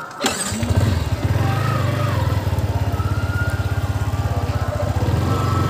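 Yamaha MT-15 V3's 155 cc single-cylinder engine started on the electric starter, catching within about half a second, then idling with a steady, rapid low pulse.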